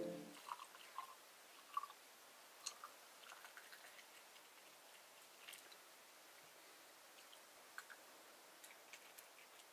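Near silence, with a few faint clicks and taps; the loudest comes a little under two seconds in.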